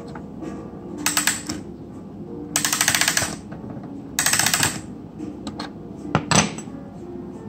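Smiths Enfield mantel clock being wound with its key: three bursts of rapid ratchet clicks as the mainspring is wound, the middle one the longest, then a couple of sharper clicks near the end.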